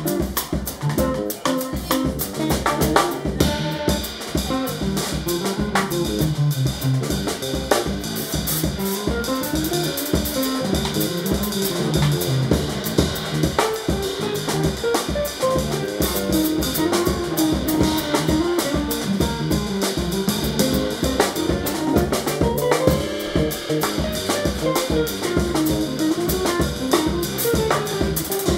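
Instrumental jazz/Afro-beat played by a guitar, bass and drum trio. The drum kit keeps up dense, steady strokes under a winding melodic line and a low bass.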